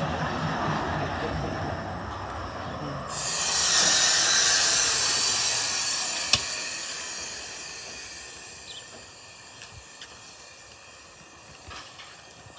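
Hunslet diesel shunting locomotive running, with a loud hiss of escaping air from about three to six seconds in. The sound then fades away, with one sharp click partway through.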